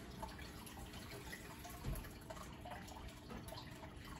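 Aquarium water bubbling and trickling softly, with many small irregular drip-like pops. A brief low thump comes a little under two seconds in.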